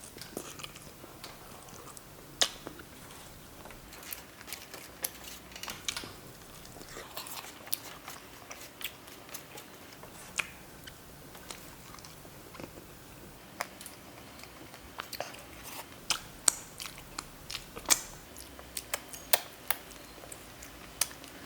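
Close-up eating sounds: a person chewing and biting food, with irregular sharp wet clicks and smacks.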